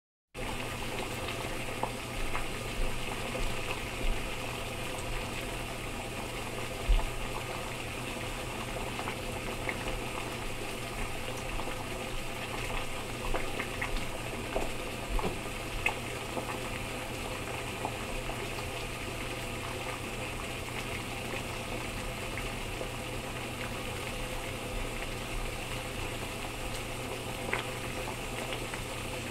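Water boiling: a steady bubbling that starts suddenly about half a second in, with scattered louder pops and low thumps, most of them in the first half.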